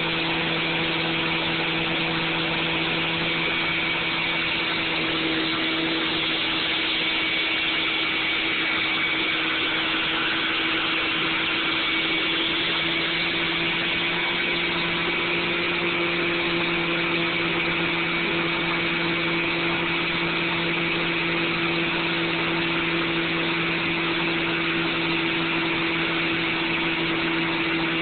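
A steady hum with a hiss, like a motor or fan running, holding a few unchanging tones.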